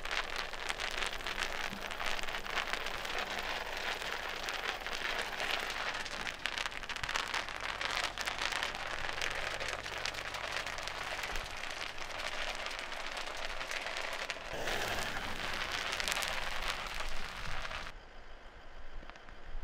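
Bubble wrap being rolled over by a car tyre, its bubbles popping in a dense, rapid crackle like rain. The crackle stops abruptly near the end, leaving a quieter background with a few stray clicks.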